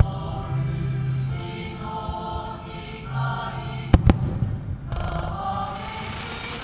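Aerial firework shells bursting with sharp bangs, one right at the start and two close together about four seconds in, over choral music.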